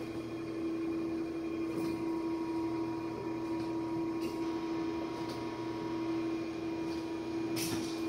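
Industrial media shredder's motor running with a steady hum, and a few faint clicks and knocks near the microphone.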